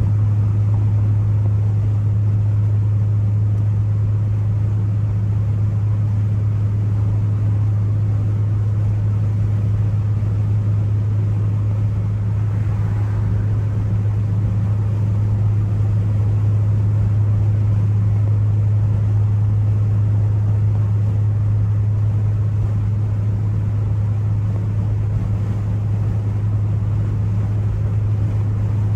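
Ford Focus ST's turbocharged four-cylinder engine droning steadily at a constant pitch while cruising, with road noise underneath.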